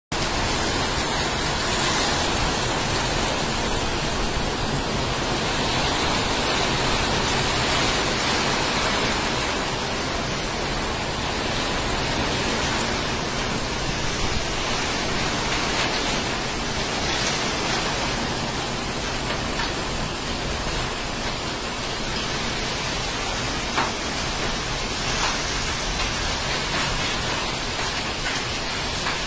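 Heavy monsoon rain falling steadily: a dense, even hiss of rain on the terrace and rooftops, with a few louder single drops standing out in the second half.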